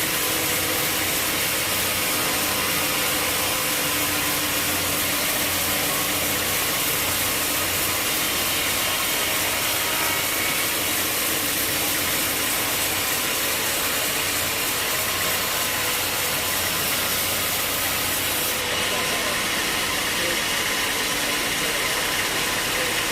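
Sawmill running steadily, its engine and saw working through a walnut log with a constant dense mechanical noise.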